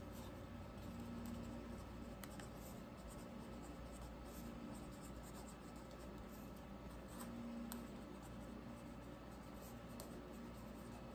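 Faint scratching of a pen writing by hand, with scattered light ticks over a steady low room hum.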